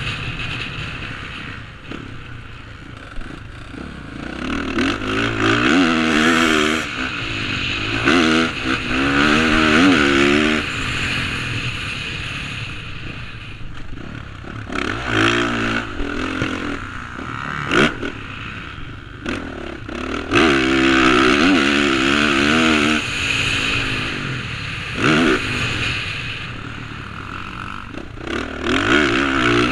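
Dirt bike engine heard from the rider's helmet camera, revving hard and backing off again and again as the throttle is opened and closed, with about five big surges through the stretch, over a steady rush of wind noise.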